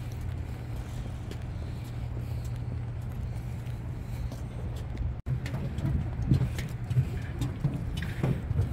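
Footsteps walking on a floating pontoon and then down a metal gangway, over a steady low rumble. The sound cuts out for an instant about five seconds in, and the steps that follow are heavier, irregular thumps on the gangway.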